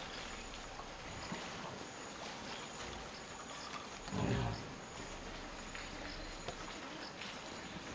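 African forest elephant giving one short, low call about four seconds in, over a steady background of insects chirping and buzzing.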